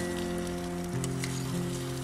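Background music of long held notes, changing about a second in, over a steady crackling sizzle.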